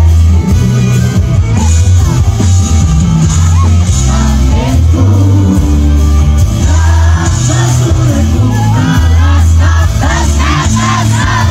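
Live band music with a male singer, loud, over a heavy steady bass line.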